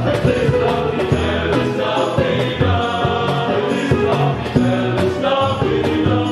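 Choir of young men singing a hymn, accompanied by violins and guitar, with a steady beat running under the sustained sung notes.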